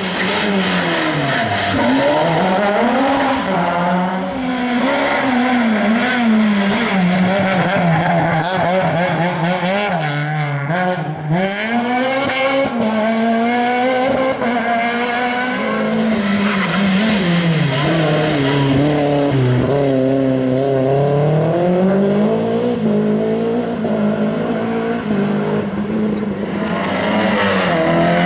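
Rally cars driven hard through a tight cone-and-tyre slalom, one after another: engines revving up and dropping back every second or two as the drivers accelerate, shift and brake between gates, with tyres squealing.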